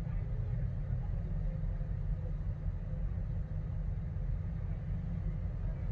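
Car engine idling while stopped, heard from inside the cabin as a steady low rumble.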